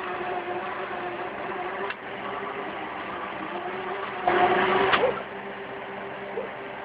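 Skid steer loader's engine running steadily while driving its hydraulic auger into soil. A louder surge lasts about a second around four seconds in, and there are a couple of short knocks.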